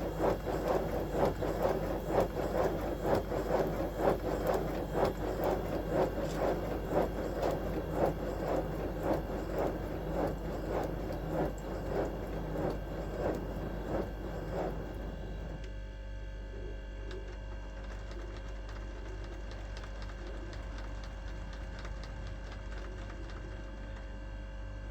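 5-inch gauge BR Class 9F live steam locomotive running on compressed air on a rolling road, its two-cylinder exhaust beats coming a few times a second. The beats die away about fifteen seconds in, leaving a steady hum and faint hiss.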